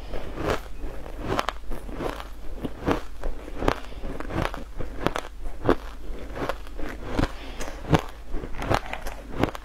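Ice chunks coated in green powder being bitten and chewed, a steady run of sharp crunches and cracks about two to three times a second.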